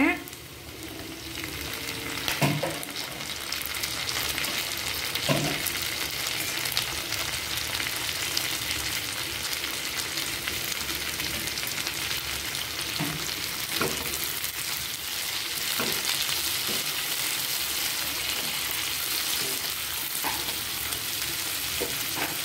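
Sliced onions, cashews and chillies sizzling in butter in a nonstick kadai, with tomato pieces stirred in by a silicone spatula. The sizzle builds over the first few seconds and then holds steady, with occasional light knocks of the spatula against the pan.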